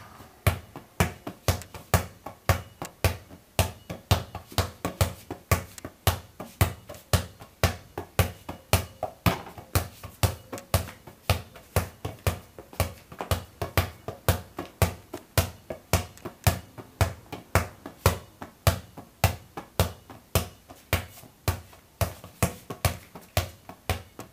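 A ball dribbled one-handed, bouncing off the floor in a steady run of sharp bounces, about two to three a second.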